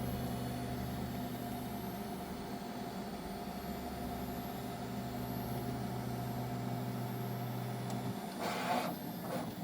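Bambu Lab P1S 3D printer's fans and motors humming steadily while it prepares to print. Its low drone stops about eight seconds in, followed by a short hiss.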